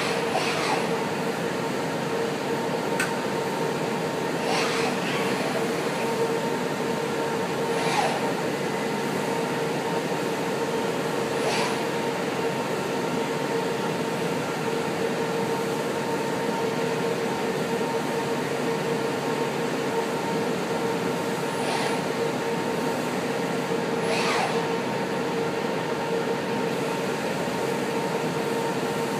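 OTC welding robot cell working on a tow bar: a steady hum and hiss with about six brief sweeping sounds spread through it.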